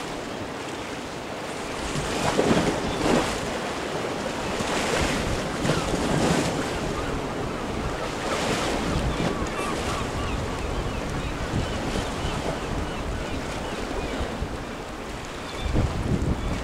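Sea surf washing against rocks, swelling and falling every couple of seconds, with wind buffeting the microphone.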